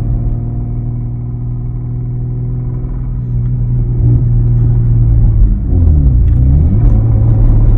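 Lexus IS300's 2JZ-GE inline-six engine running at a steady speed, getting louder about four seconds in. The owner says the engine has a rod knock and that it is knocking here.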